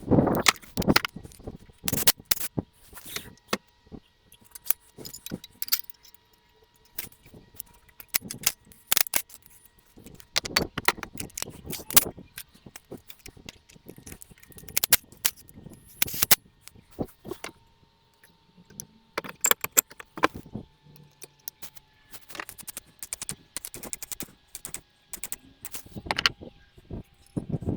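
Irregular metallic clinks, clatters and knocks of metal tools and engine parts being handled during an engine strip-down, with short pauses between them.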